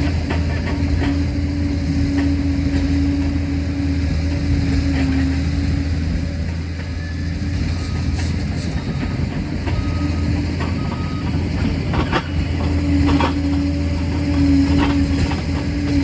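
Liebherr PR 746 crawler dozer's diesel engine running steadily at work, with scattered clanks and knocks from its steel tracks.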